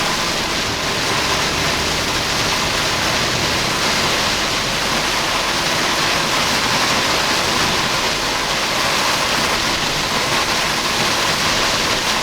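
Torrential tropical-storm rain beating on a slowly moving Jeep Wrangler, a dense, steady hiss with no let-up.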